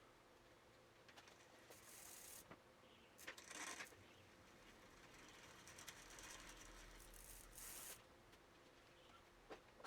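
Faint bicycle drivetrain sounds during a rear derailleur adjustment: the chain running over the rear cogs and the freehub ratcheting as the cranks are turned, in three short spells.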